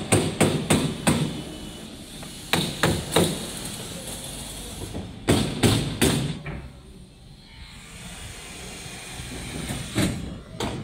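Sharp knocks like hammer blows, coming in four short bursts of several strikes each, a few tenths of a second apart.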